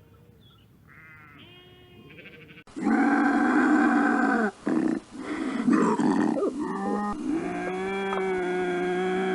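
Animal calls: a few faint pitched calls, then a run of loud, drawn-out pitched calls, several in a row, after a cut about three seconds in.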